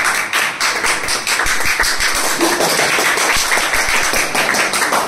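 Several people clapping their hands rapidly and continuously in encouragement, the clapping fading out right at the end.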